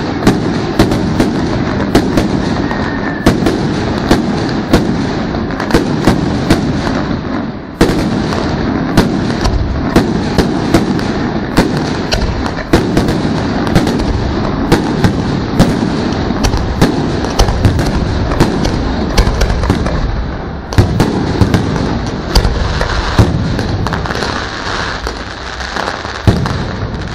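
Fireworks show in full barrage: a continuous rumble and crackle of bursting shells, with sharp bangs about every second and a brief lull twice.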